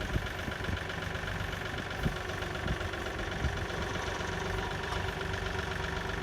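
An engine idling steadily, with a few short knocks or clanks over it.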